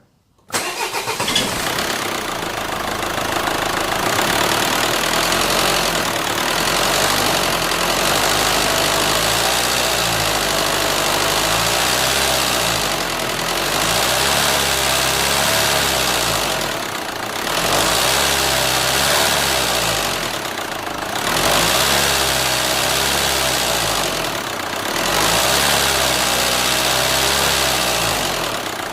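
Renault Scénic II 1.9 dCi four-cylinder turbodiesel starting about half a second in, then running, with engine speed rising and falling several times. This is the abnormal engine noise for which the owner plans to remove and replace the engine.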